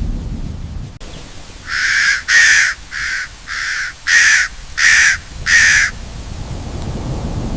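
A bird calling seven times in quick succession, each call short and spaced a little over half a second apart. A low, noisy rumble fades away at the start and builds up again near the end.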